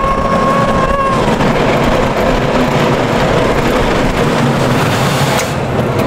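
Riding the Jaguar! roller coaster: a loud, steady rush of wind and train noise on the track. A held tone fades out about a second in.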